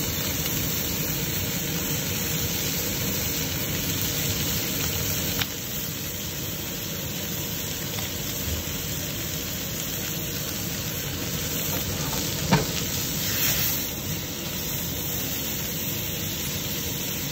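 Lamb leg steaks sizzling steadily in butter in a stainless steel frying pan, a continuous frying hiss. A single sharp knock stands out about two-thirds of the way through.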